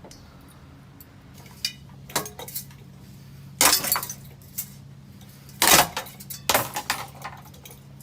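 Ceiling fan running with a steady motor hum while it is being smashed up: a series of sharp crashing, clinking impacts, the loudest about three and a half and almost six seconds in.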